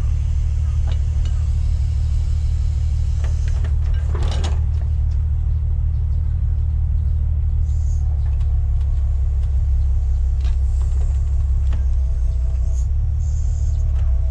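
Grapple truck's engine running steadily with a low rumble while it drives the hydraulic knuckle-boom crane and grab. Scattered light knocks and a brief crunching rasp about four seconds in come from the grab working the waste pile.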